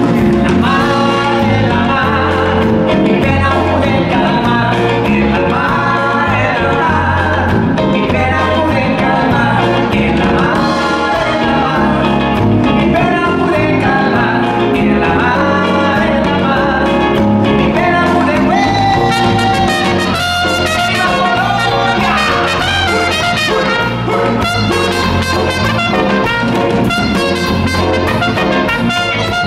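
A live band playing, with a male lead vocal over acoustic guitar, electric bass, drums and trumpet.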